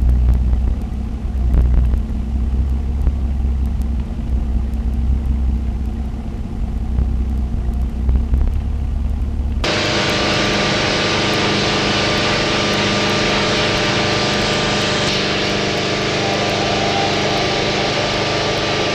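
Concrete-brick-making machinery running: a low, uneven drone for about the first ten seconds, then an abrupt switch to a steadier machine hum with hiss and several held tones.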